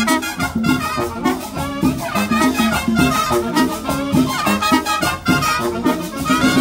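Marching band playing a Latin dance tune, saxophones and trumpets over a steady drum beat.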